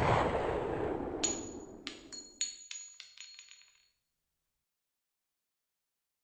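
A loud deep boom dying away over about two seconds, followed by a handful of sharp glassy clinks that ring briefly at a high pitch and fade out by about four seconds in, then dead silence.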